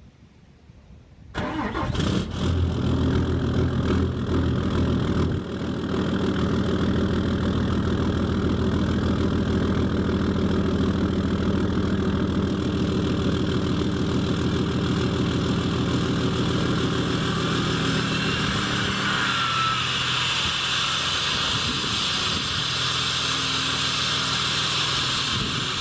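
2013 Ram's 6.7-litre Cummins inline-six turbo diesel cold-started: it catches suddenly about a second and a half in and settles into a steady idle. Past about two-thirds of the way through, the deep idle tones fade and a higher hiss takes over.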